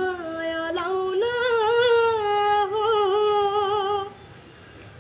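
A young boy singing a Nepali song unaccompanied. He holds long notes with small wavering turns in the melody. The phrase ends about four seconds in, and the next one starts right at the end.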